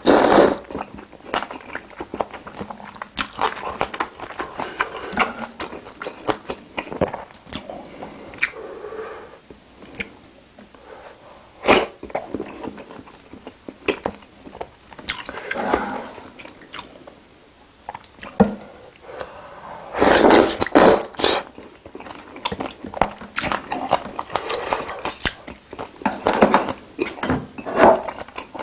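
Close-miked eating sounds of spicy seafood stew: chewing and biting with many wet clicks and smacks. About twenty seconds in comes a louder noisy burst lasting about a second.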